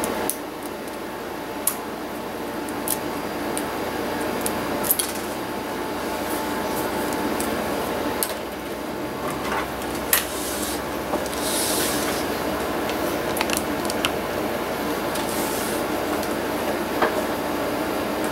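Hand tools clicking and scraping against the plastic casing of a laptop's screen lid during disassembly: scattered light clicks and a few short scrapes, over a steady low background hum.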